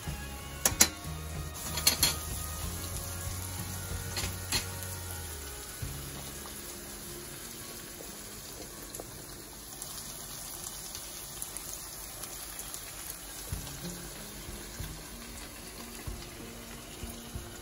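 Pot of spaghetti at a rolling boil with a pan of prawn and tomato sauce sizzling beside it. Metal tongs clink against the steel pot several times in the first five seconds while the pasta is stirred.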